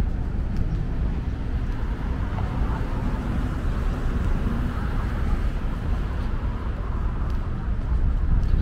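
Steady city street traffic noise: cars driving past on a busy avenue, a little louder around the middle.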